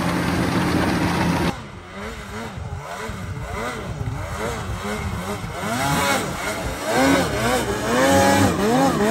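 Snowmobile engine running at a steady pitch for about the first second and a half. After an abrupt change, a snowmobile engine revs up and down again and again, its pitch rising and falling in quick arcs, getting louder toward the end as the sled climbs and sidehills in snow.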